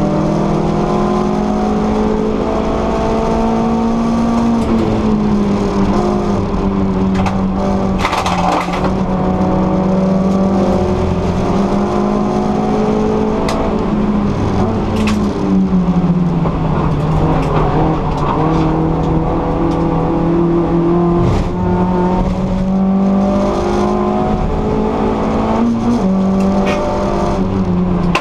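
VW Lupo GTI Cup race car's four-cylinder engine heard from inside the cabin, running hard at high revs. Its pitch drops a few seconds in and again about halfway through, then climbs back, with a few sharp knocks along the way.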